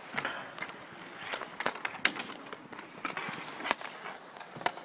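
Inline hockey skate wheels rolling on an asphalt rink, with irregular sharp clacks of sticks and puck.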